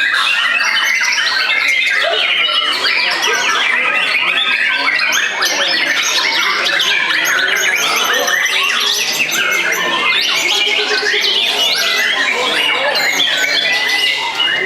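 White-rumped shama (murai batu) singing without pause: rapid, varied whistles, trills and chattering phrases, with other birds' song overlapping it.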